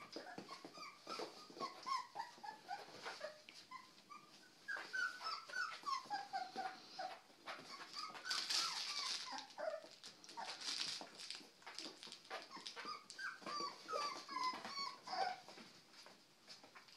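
Three-week-old puppies whimpering and squeaking: many short, high little calls that mostly slide down in pitch, coming in quick runs, with light clicks and scuffles among them.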